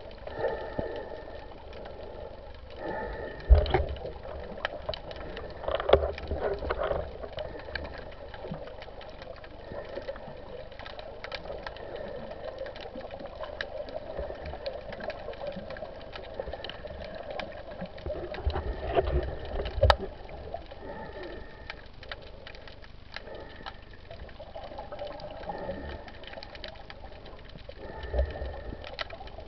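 Underwater sound heard through a speargun-mounted camera's housing: a muffled steady hum with a constant fine crackle of tiny clicks. A few dull knocks stand out, about four seconds in, at six seconds, around twenty seconds and near the end, as the gun and the speared fish are handled.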